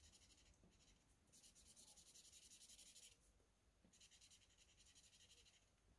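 Faint scratching of a felt-tip marker colouring on paper, in three spells of quick strokes with short pauses between.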